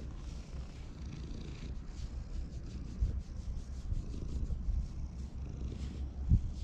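A domestic cat purring steadily close up while it is stroked on the head and cheeks. A soft low thump about three seconds in and a louder one near the end.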